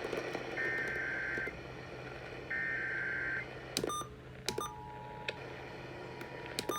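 Emergency Alert System tones over AM radio: two about one-second data bursts of the SAME header, then a few sharp clicks, and about four and a half seconds in the steady two-tone EAS attention signal begins, all over radio hiss and a low hum.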